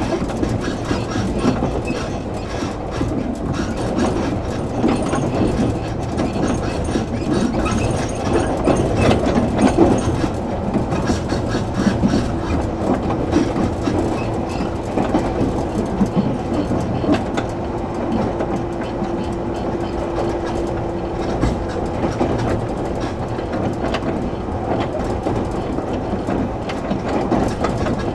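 113 series electric multiple unit (7700 subseries) running between stations, heard inside the car: a steady rumble with the clickety-clack of wheels over rail joints. A steady low tone joins in for several seconds around the middle.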